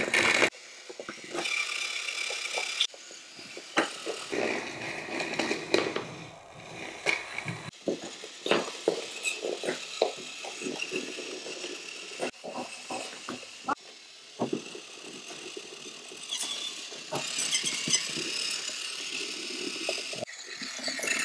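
Battery-powered toy train engines whirring as they drive along wooden track, with scattered clicks and knocks from wheels and parts. The sound changes abruptly several times, as one short take cuts to the next.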